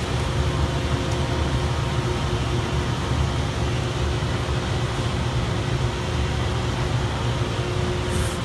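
Steady low hum of workshop machinery running, with a couple of faint steady tones over it. A faint click comes about a second in, and a brief high hiss near the end.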